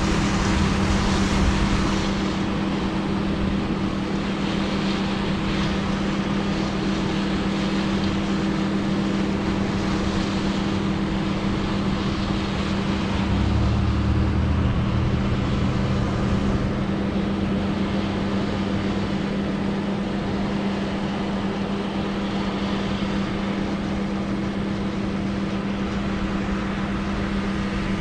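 Large harvest machinery running steadily, a constant engine drone with a steady hum, and a deeper low rumble that swells for several seconds around the middle.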